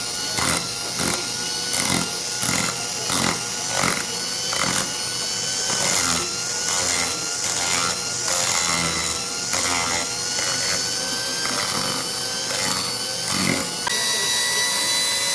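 Small electric power tool grinding rust off a rusty padlock: a steady motor tone with a scraping stroke about every half second as the tool is worked against the metal. The motor's pitch changes about a second before the end.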